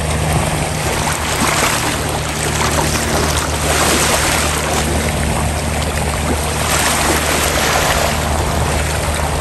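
A boat's engine running steadily with a low hum, under wind and sea noise.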